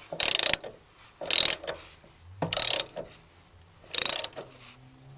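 Socket ratchet on a long extension tightening a fender bolt, its pawl clicking in four short strokes about a second and a half apart.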